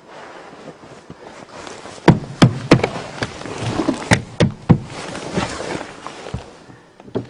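Irregular sharp knocks and clatter with rustling, about half a dozen, bunched in the middle: handling noise as the hand-held camera is moved about in the car's cabin.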